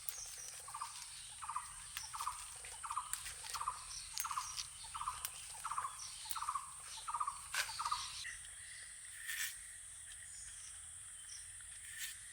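A bird calling over and over: about eleven short, evenly spaced calls, roughly one and a half a second, stopping about eight seconds in.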